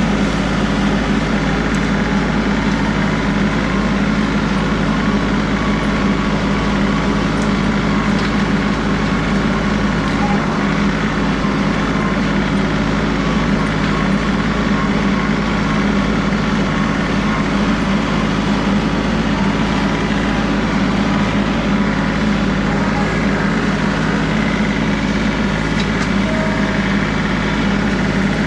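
John Deere 3038E compact tractor's three-cylinder diesel engine running steadily at a constant speed, with no change in pitch or load.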